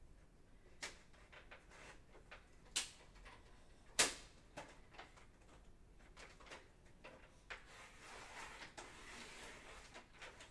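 Faint knocks and clicks of off-camera handling, with one sharper click about four seconds in and a longer scraping rustle around eight to nine seconds in.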